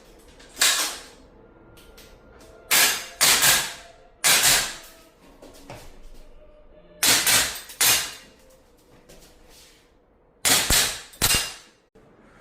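Gas-powered airsoft rifle firing single shots in spaced groups of one to three, about ten sharp cracks in all, with pauses of a second or two between groups.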